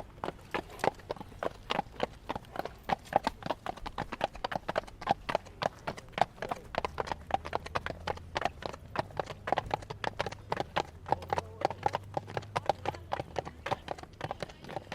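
Horse trotting: a steady, even rhythm of hoofbeats, several clip-clops a second.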